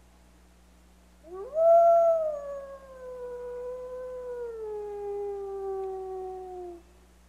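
A wolf howling: one long howl that swoops up quickly about a second in, is loudest just after, then slowly slides down in pitch for about five seconds before breaking off.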